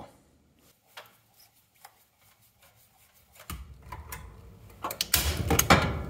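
A manual staple gun fastening thin wire to wooden wall boards: a few faint clicks, then from about halfway handling rustle, with a cluster of sharp clacks near the end as the gun is squeezed.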